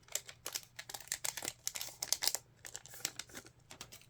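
Trading card pack wrapper being torn open and crinkled by hand. It makes a dense run of quick crackles that thins out over the last second or so.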